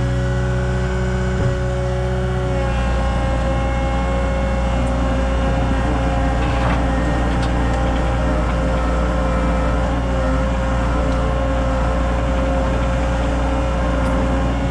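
CAT 279 skid steer's diesel engine running steadily, its note shifting a little about two and a half seconds in.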